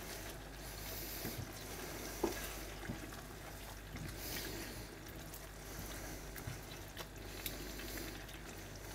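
A utensil stirring a thick, wet chicken-and-pearl-barley stew in a pan on the hob: soft liquid slopping with a few light knocks against the pan, over a steady quiet hiss from the pan on the heat.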